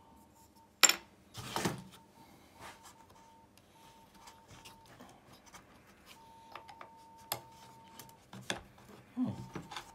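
Small metallic clicks, taps and scrapes of hands and a small tool working loose the potentiometer fittings on a record player's metal chassis plate. One sharp click about a second in is the loudest, followed by a short rushing noise; lighter scattered clicks follow, busier near the end.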